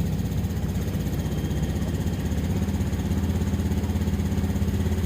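Honda Scoopy scooter's small single-cylinder engine idling steadily, just restarted after a throttle/ECU reset (mode 1).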